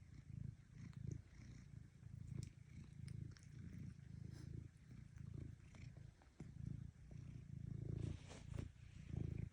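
Domestic cat purring up close: a low, rough rumble that swells and fades with each breath, about one cycle every two-thirds of a second, with a few faint clicks and a brief rustle near the end.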